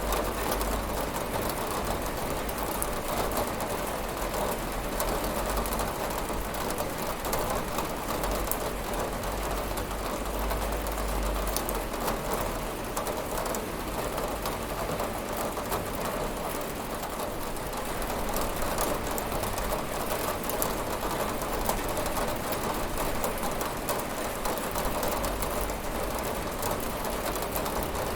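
Steady rain pattering on a window, a dense hiss of drops with many fine ticks and a low rumble underneath.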